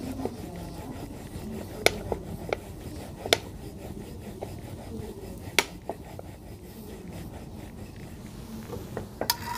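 Wooden rolling pin rolling out flatbread dough on a steel plate: a soft, steady rubbing, broken by a few sharp clicks.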